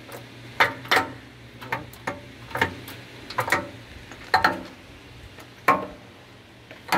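Sharp metallic clicks and clinks from the open headstock gearbox of a Japanese lathe as its gears are shifted by hand: about a dozen, irregularly spaced, over a faint steady low hum.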